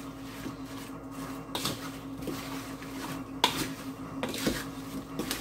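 Sliced apples being tossed by hand in a mixing bowl with sugar and spices: soft, irregular squishes and rustles, over a steady low hum.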